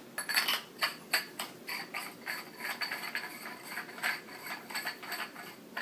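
Parts of a Spyder Fenix paintball marker being fitted together by hand: a run of quick, irregular plastic-and-metal clicks and scrapes.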